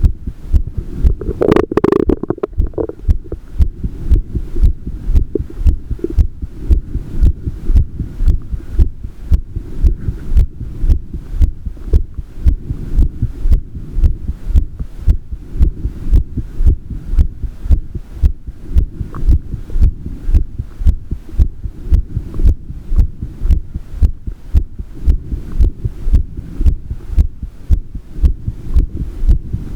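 An adult's heart beating, a steady, regular train of low thumps over a low hum. A brief, louder noise cuts in about two seconds in.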